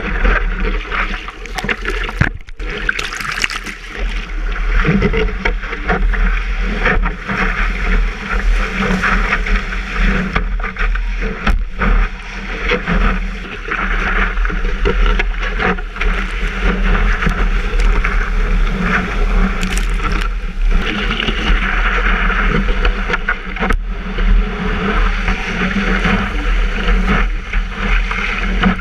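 Water rushing and splashing around a surfboard as it is paddled through whitewater and then ridden along a breaking wave, with a steady low rumble underneath.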